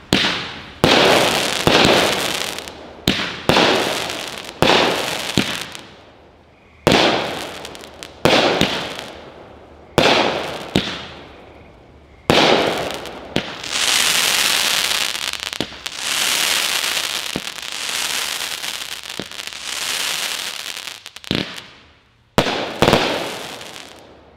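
Black Scorpion 'Uncle Sam' 16-shot 200-gram firework cake going off: a sharp report every second or two, each trailing off in a long fading crackle, with a steady crackling sizzle through the middle stretch before two last quick shots near the end.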